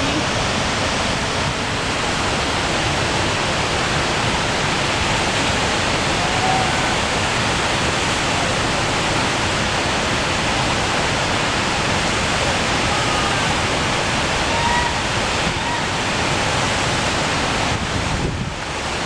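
Loud, steady rush of whitewater at a waterfall, a constant hiss-like roar of falling and churning water that dips slightly near the end.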